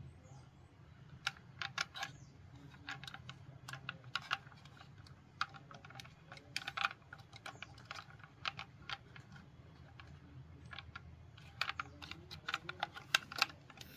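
Irregular light clicks and taps of small hard plastic toy vehicles being handled, some in quick clusters, over a faint low steady hum.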